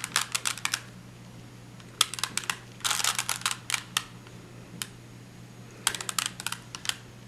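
A plastic 3x3 Rubik's cube being turned by hand, its layers rattling in quick clicking bursts: one at the start, two a little after two seconds in, and one near the end, each with a few short pauses between.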